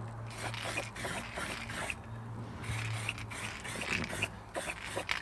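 Small irregular clicks, taps and light scrapes of objects being handled and rummaged through, over a steady low hum.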